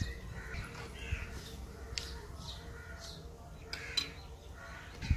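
Birds chirping in short, scattered calls, with a few light knocks and a low steady rumble underneath.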